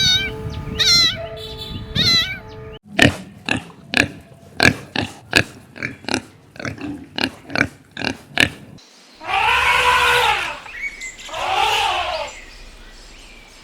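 A cat meowing, then a run of about a dozen short, sharp pig grunts, then two long, drawn-out animal calls that rise and fall in pitch.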